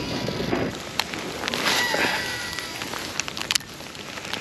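Light hail starting to fall again: a steady hiss with a few scattered sharp ticks.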